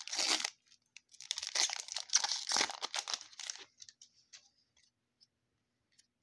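Foil wrapper of a 2020 Score NFL trading-card pack being torn open and crinkled: a short rip, then a longer stretch of tearing and crinkling, tailing off into a few light rustles.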